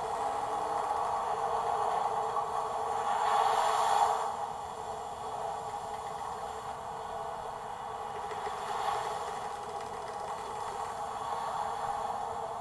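Recorded wind-and-waves storm sound effect played through the diorama's small speaker: a steady, thin rushing with no deep low end. It swells to its loudest about four seconds in and swells again more softly near nine seconds, like waves surging.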